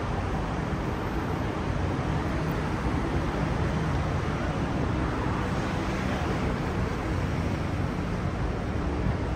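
Steady road traffic noise along a busy city street, an even rumble without distinct events.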